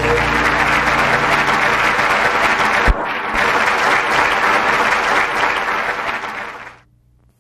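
Audience applause: dense, steady clapping that fades out near the end, with a single sharp click about three seconds in.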